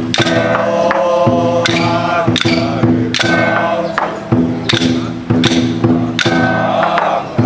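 Temple ritual music: chanting or singing over sustained instrumental tones, with percussion struck in a steady beat of about one stroke every 0.7 seconds.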